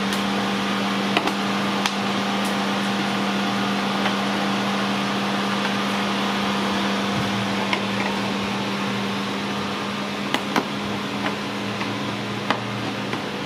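Steady machine hum with a strong low tone over an even hiss, with a few sharp clicks from a screwdriver prying plastic push-pin clips out of a car's plastic radiator-support cover.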